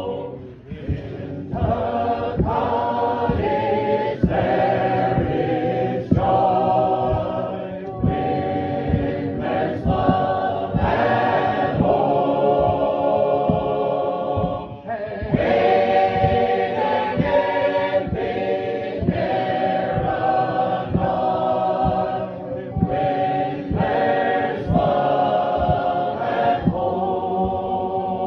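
A congregation singing a hymn together, many voices in chorus, phrase after phrase with brief breaks between lines.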